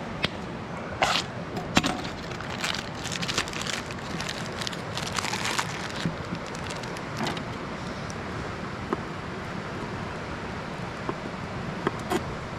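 Steady rush of a nearby stream, with a run of small sharp clicks and crackles in the first half and a few more near the end.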